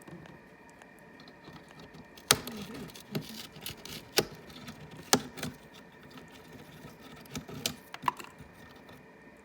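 Parrot beak chewing and crunching on material, giving irregular sharp clicks and snaps, the loudest a little over two seconds in and about five seconds in.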